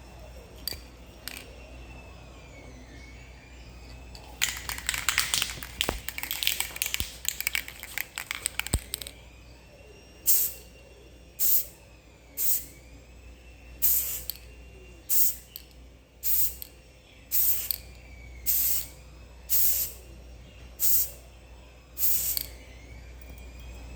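An aerosol spray paint can rattled for a few seconds, then sprayed in about eleven short bursts of hiss, roughly one a second.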